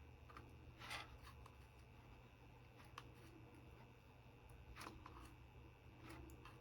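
Near silence with a few faint scrapes and clicks, about one second in and again near five and six seconds: a screwdriver prising at the swollen battery cell stuck to its pad inside a Bluetooth keyboard.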